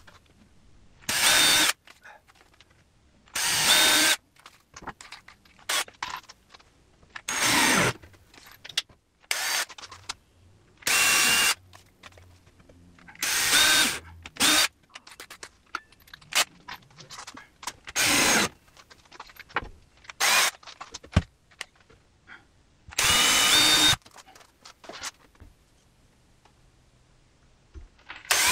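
Cordless drill running in about a dozen short bursts, each under a second, with quiet gaps and small clicks between them, as holes are pre-drilled and screws driven into timber. One burst winds down in pitch as the motor stops.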